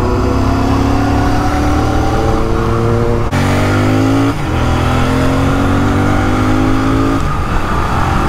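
Motorcycle engine under hard acceleration while riding, revs climbing steadily with gear changes about three and four seconds in. Steady wind rumble runs underneath.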